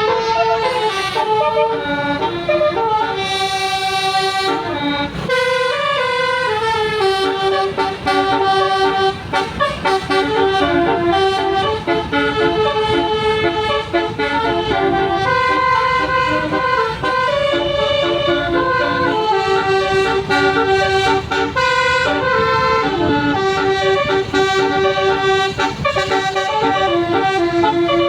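A bus's basuri 'telolet' musical horn playing a tune: a long run of loud horn notes that change pitch in steps several times a second, with a few short breaks.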